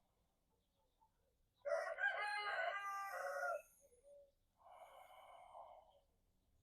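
A rooster crows once, a single drawn-out cock-a-doodle-doo lasting about two seconds, beginning a little under two seconds in. A softer breathy sound follows near the end.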